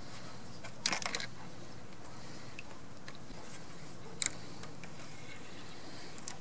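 Handling of a float rod and reel: a short crunchy rattle of clicks about a second in, then a single sharp click about four seconds in and another near the end, over a steady low outdoor hiss.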